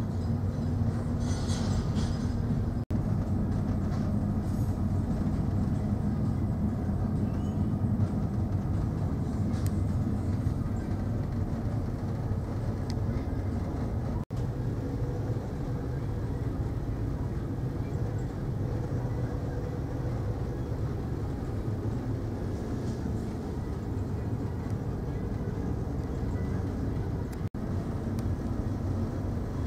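Steady low rumble of the MV Normandie car ferry under way, its engines and hull giving a constant drone with a low hum. The sound drops out briefly three times.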